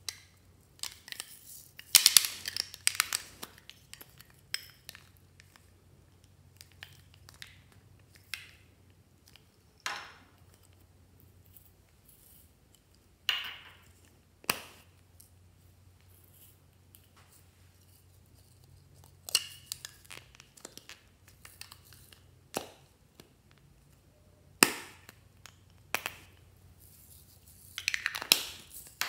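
Small plastic slime containers being handled and clicked open, with scattered sharp clicks and snaps and short bursts of crinkling and rustling as sequins and glitter are sprinkled, separated by quiet gaps.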